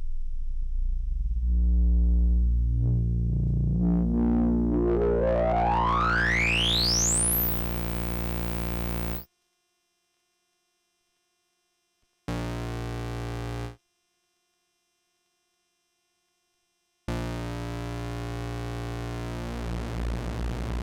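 Behringer Phara-O Mini analogue synthesizer playing a low sustained tone while its resonant filter sweeps steeply upward into a high, whistling peak. The tone cuts off suddenly about nine seconds in. After a silence comes one short note, and after a second silence a new low tone is held.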